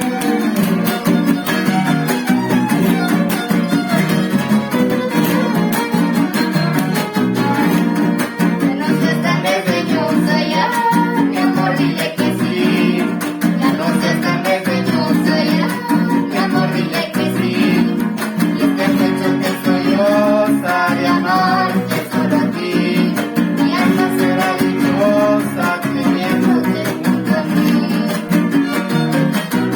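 A trío huasteco playing a huapango: a violin melody over the strummed rhythm of the jarana huasteca and the huapanguera.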